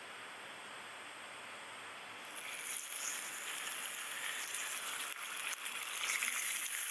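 A soft steady hiss, then about two seconds in food starts sizzling in a hot pan, getting louder and staying on.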